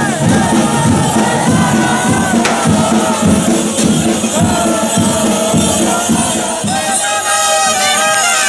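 Music with a wavering melodic line, sung or played, over a pulsing beat with shaker-like percussion, mixed with crowd noise.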